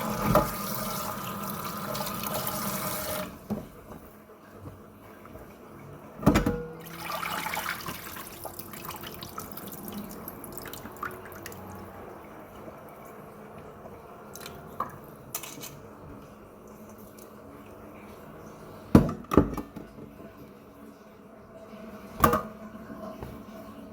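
Tap water running into a sink, shut off about three seconds in. Then a few sharp knocks and clatters, the loudest a quick pair later on.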